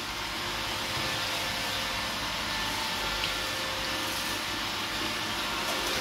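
iRobot Roomba 880 robot vacuum running on a hard tile floor: a steady whir from its suction motor and brushes, with a few faint steady hums over it.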